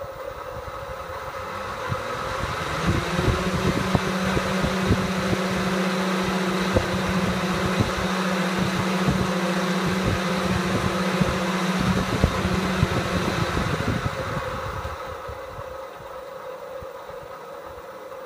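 Twin electric cooling fans on a VW car radiator, driven from a 12 V PWM controller, speeding up to full power. A strong rush of air with a steady low hum builds over the first few seconds and holds at full speed, then dies away as the fans are turned down and spin down near the end.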